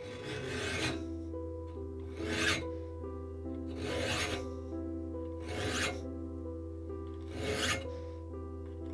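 A saw file rasping across the steel teeth of a Disston Warranted Superior skew-back handsaw clamped in a vise, resharpening the teeth. There are five short strokes, about one every second and a half. Background music with sustained notes plays underneath.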